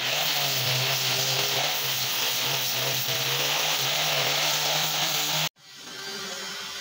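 Handheld electric power tool with a round brush head running steadily at speed, a constant motor hum under a loud hiss. It cuts off abruptly about five and a half seconds in, leaving a quieter steady hum.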